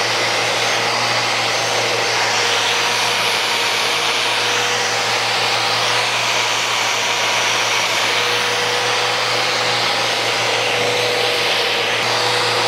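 Festool Rotex sander with an interface pad and 40-grit paper running steadily against the live edge of a wood slab, with its dust extractor drawing air through it: a constant whine over a steady rushing hum.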